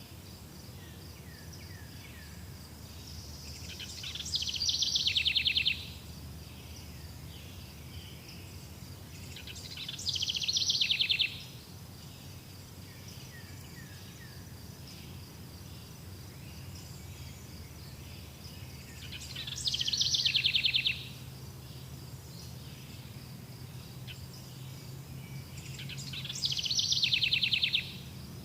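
Forest ambience: four loud, rapid trilled calls, each lasting about a second and a half, swelling and then stopping abruptly, repeated every several seconds over a steady thin high tone and a low hum.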